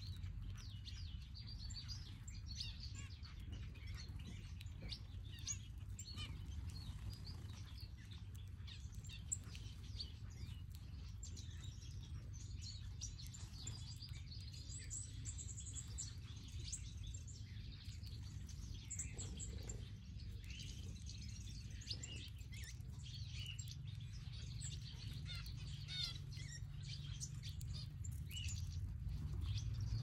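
A mixed flock of aviary finches chirping and twittering with many short, high calls, over a steady low rumble.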